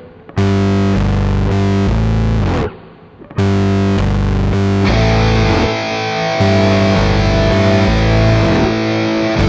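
Background music: rock with distorted electric guitar playing held chords, with two short breaks, one near the start and one about three seconds in.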